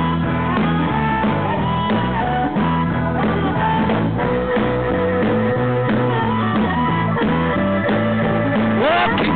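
Rock band music with guitar, bass and a steady drum beat; long held melody notes carry the middle, and the singing comes back in near the end.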